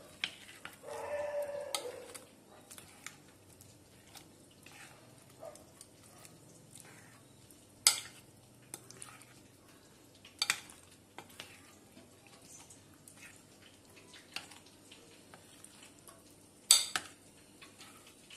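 Steel spoon stirring cauliflower florets through thick batter in a metal bowl: wet scraping and squelching, with sharp clinks of the spoon against the bowl, the three loudest at about 8, 10 and 17 seconds. A brief pitched sound comes about a second in.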